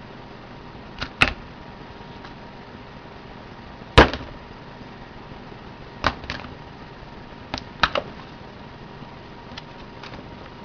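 A block of homemade ballistics gelatin dropped and slammed onto a kitchen countertop: a series of sharp slaps and thuds, the loudest about four seconds in, several coming in quick pairs as the block hits and bounces.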